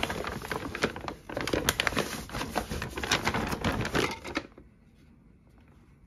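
Paper rustling and crinkling in quick irregular crackles as a blender is wrapped and packed into a brown paper shopping bag; it stops about four and a half seconds in.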